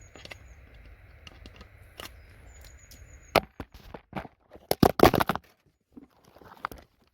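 Hard objects clattering: a run of sharp clicks and knocks that starts about three seconds in, with a loud burst of clatter about five seconds in and a last knock near the end.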